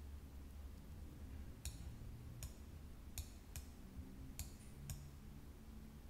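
About six faint, sharp clicks at irregular intervals from a computer mouse and keyboard being worked, over a low steady hum.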